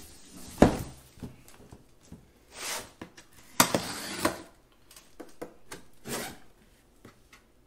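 A knife slicing the packing tape on a cardboard box: several short rasping strokes, with a sharp knock about half a second in.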